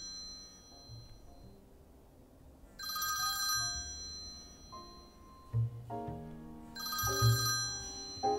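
An iPhone ringing with an incoming call: a chiming ringtone phrase of bright, high tones sounds three times, each time dying away. Low bass and piano notes of background music come in about halfway and grow louder.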